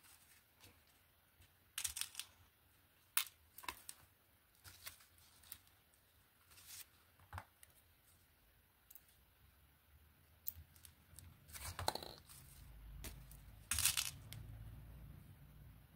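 Glass beads and small gold spacer beads clicking and clinking as they are handled and strung onto elastic cord, with small pliers in use: scattered light clicks and short rustles, the loudest rustle near the end.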